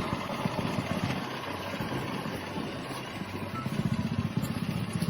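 A combustion engine running steadily under load, loud and rough, with a fast, even pulsing.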